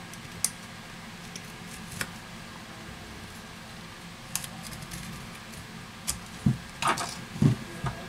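Scattered small clicks and taps from a tablet being handled. Near the end comes a cluster of soft knocks and a brief rustle as the freshly glued display is pulled at, against a faint steady hum.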